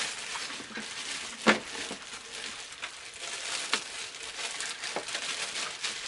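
Plastic packaging bag crinkling as a humidifier's power cord is unwrapped, with a few light knocks, the sharpest about one and a half seconds in.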